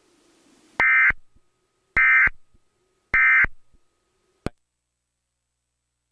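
Emergency Alert System end-of-message code: three short bursts of digital data tones, about a second apart, marking the end of the alert broadcast. A single click follows about a second after the last burst.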